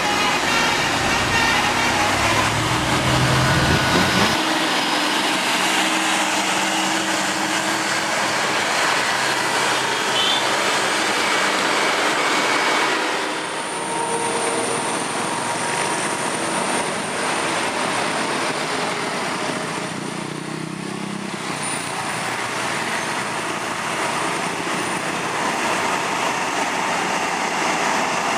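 Heavy road traffic noise from buses passing, with a close heavy engine and the held tones of a multi-tone telolet bus horn in the first few seconds, then a steady wash of traffic noise.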